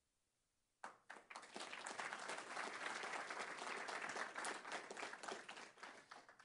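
Audience applauding. It starts about a second in and fades out near the end.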